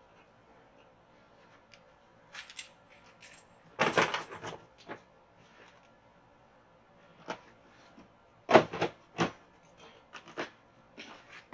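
Gear being packed into a hard plastic rolling tool box: a series of separate knocks and short clatters against the plastic, the loudest about four seconds in and again about two-thirds of the way through.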